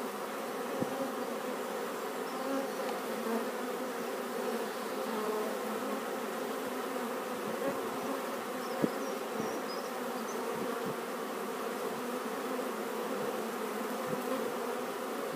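Honeybees buzzing in large numbers around an opened, disturbed hive: a steady, even hum. A few light knocks cut through it, the sharpest a little past halfway.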